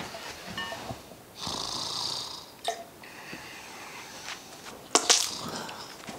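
A man snoring with long rasping breaths and a sudden loud burst about five seconds in.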